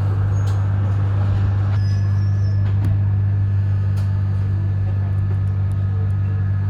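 Z class tram running, a steady low hum with a few faint clicks and rattles.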